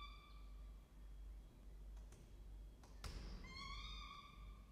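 Peregrine falcon chick's begging calls as it is fed: drawn-out, slightly rising cries. One trails off right at the start, and a longer one begins about three and a half seconds in, just after a single sharp knock.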